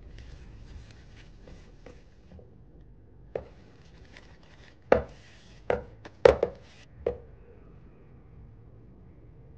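Silicone spatula folding macaron batter in a stainless steel bowl: soft scraping and mixing, then about six sharp knocks against the metal bowl between about three and seven seconds in, each with a short ring. This is the macaronage stage, working meringue into the almond flour and sugar.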